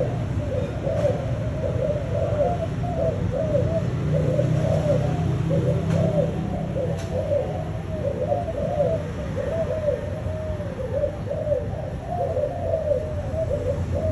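Young spotted dove cooing in a long, unbroken run of short low coo notes, about three a second, the rapid 'thúc gù' style of cooing.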